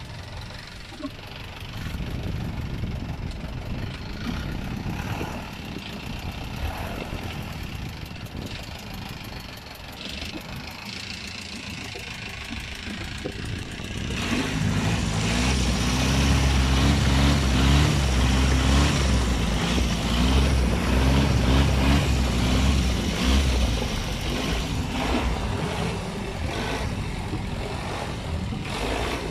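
Longtail boat engine running under way, with wind and water noise. About halfway through, the engine's low hum gets much louder and stronger, then eases back a few seconds before the end.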